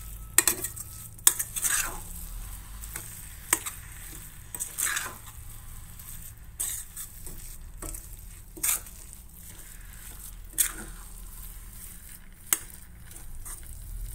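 A utensil stirring a thickening coconut, milk and sugar mixture cooking in a pan, with irregular scrapes and sharp clinks against the pan every second or two. This is the continuous stirring that keeps the burfi mixture from catching and turning lumpy.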